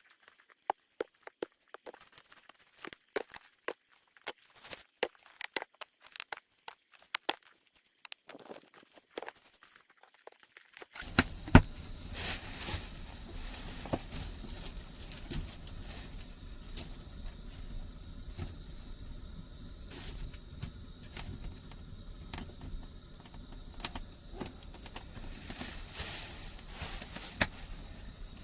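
Scattered crunching and snapping clicks, then, a little over a third of the way in, a steady hiss with irregular crackles from a freshly relit wood fire.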